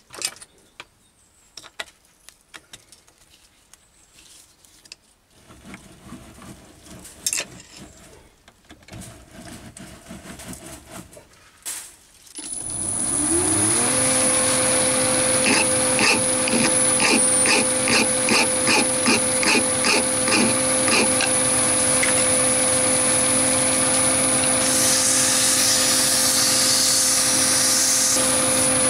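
Clicks and handling noise from the mini lathe's slide handles. About twelve seconds in, the lathe motor spins up with a rising whine and then runs steadily with the chuck turning, with a run of light regular ticks for several seconds. Near the end comes a hissing scrape as abrasive is held against the spinning mild-steel cone to polish it.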